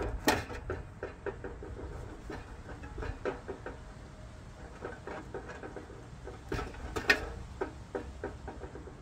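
Light clicks and taps of a small knife and hands working food over a metal tray, with two sharper knocks, one just after the start and one about seven seconds in.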